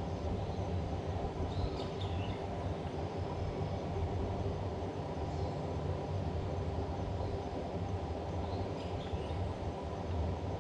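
A steady low rumble, with a few short high bird chirps now and then.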